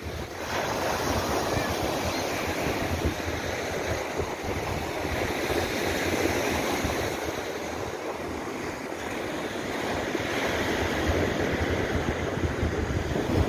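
Large wind-driven lake waves surging and breaking onto the shore in a steady rush, with strong wind buffeting the microphone.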